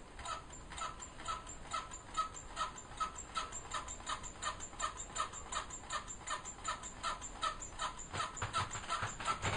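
Homemade tin-can Stirling engine with a balloon diaphragm and CD flywheel running on a tea light's heat, its moving parts clicking in a steady rhythm of about two and a half clicks a second.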